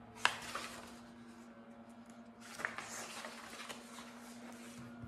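Hardcover picture book being handled and a stiff page turned: a sharp click just after the start, then about a second of paper rustling from about two and a half seconds in, over a faint steady hum.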